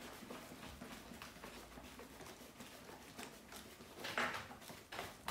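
Faint handling sounds, light clicks and rustling, as the breathing-loop hoses of a closed-circuit rebreather are unscrewed and pulled off their connectors, a little louder about four seconds in.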